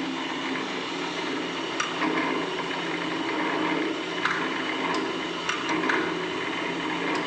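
Electric rebar cutting machine running without load with a steady mechanical hum. A few light clicks occur in the second half.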